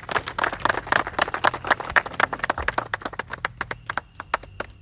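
A small group of people clapping their hands in applause, quick and irregular, thinning out to scattered claps near the end.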